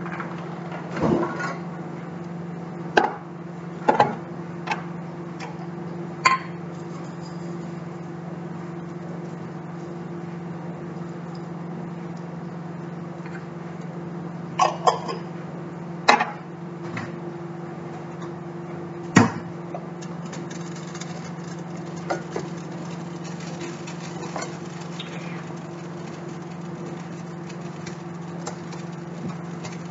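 Kitchen cookware, cans and a plastic bowl being handled and set down on a glass stovetop, making scattered knocks and clinks, the loudest a handful of sharp ones in the first twenty seconds. A steady low hum runs underneath.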